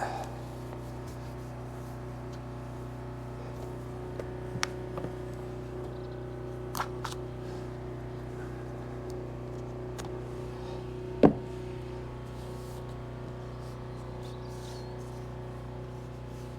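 A steady mechanical hum with a few sharp clicks, and one louder knock about eleven seconds in.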